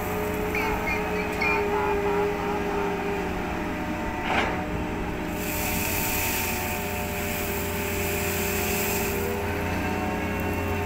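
Steady machinery hum of a port crane working a clamshell grab, with several fixed tones. There is a short, sharp, louder sound about four seconds in. Then comes a rushing hiss for about four seconds as the grab releases coal onto a barge's pile.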